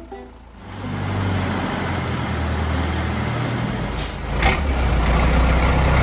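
TAM diesel truck engine running steadily. About four seconds in come a couple of short sharp noises, and the engine grows louder after them.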